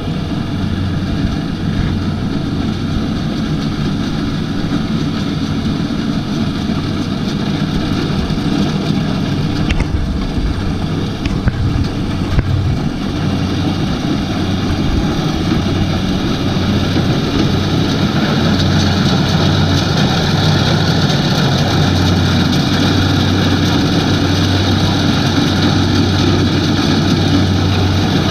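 Kubota DC-70 combine harvester running steadily, a low engine hum under a dense mechanical rattle and hiss. A few sharp clicks come about ten to twelve seconds in, and the sound grows slightly louder and brighter in the second half.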